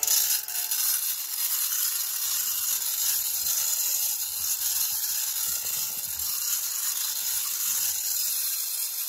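Small handheld desktop vacuum cleaner running with a steady high hiss as it sucks up loose diamond-painting drills from the canvas, cutting off at the end.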